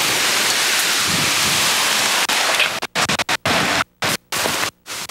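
Loud, even rushing noise of the debris and dust cloud from the North Tower's collapse blowing over the camcorder microphone. About three seconds in, the sound starts cutting in and out, with several brief dead silences.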